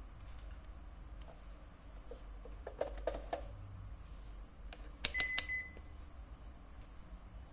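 Small plastic clicks and handling noise from a ZOYI ZT102A digital multimeter and its test leads. About five seconds in comes a quick run of sharp clicks, then the meter gives one short high beep.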